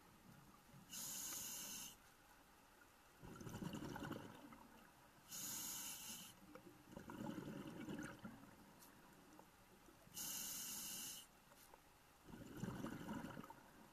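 A scuba diver breathing through a regulator, heard through the camera's underwater housing: three breaths, each a hiss of about a second on the inhale followed by a low, rumbling burst of exhaust bubbles on the exhale, about every four and a half seconds.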